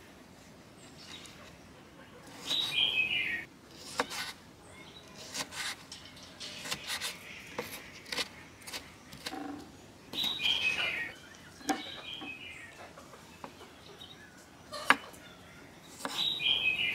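Chef's knife slicing and chopping tomatoes on a wooden cutting board: scattered sharp taps of the blade striking the board. A bird sings a short falling run of chirps three times, several seconds apart.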